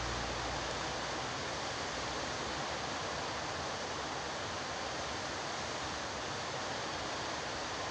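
Steady, even hiss with no distinct events, after the last of the guitar music fades out in the first second.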